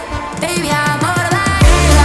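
Electronic music with a beat, in a short breakdown: the heavy bass drops out, a run of falling bass sweeps leads in, and the full bass and beat come back in about a second and a half in.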